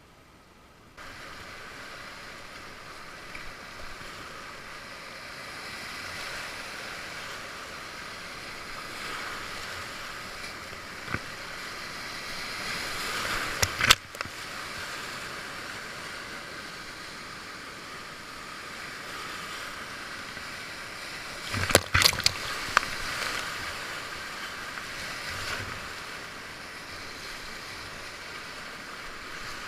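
Whitewater river rushing past a kayak, a steady hiss of moving water, with sharp splashes about 14 seconds in and again around 22 seconds.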